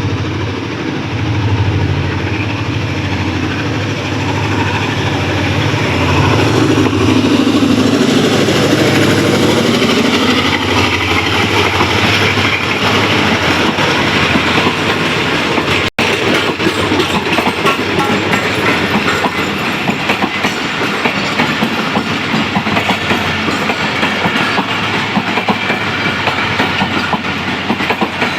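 A Pakistan Railways ZCU-30 diesel-electric locomotive's engine hums past with a falling pitch. About twelve seconds in, the hum gives way to the steady clickety-clack of the passenger coaches' wheels over the rail joints.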